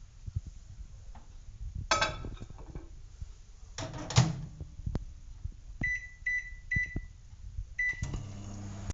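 Microwave oven being loaded and started: a plate clatters, the door shuts with a knock about four seconds in, four short keypad beeps set the time, and the oven starts its steady low hum near the end.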